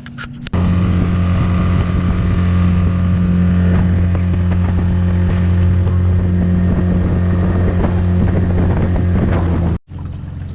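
Motorboat engine running steadily, a loud low drone that starts suddenly about half a second in and cuts off abruptly near the end.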